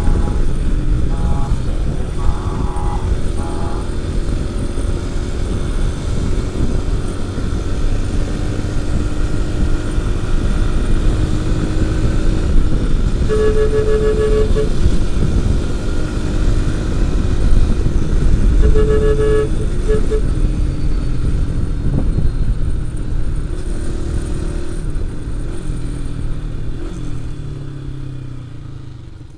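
Motorcycle riding in traffic, with engine and wind noise throughout. A horn sounds a few short beeps at the start, then two longer blasts about 13 and 19 seconds in. The noise dies down near the end.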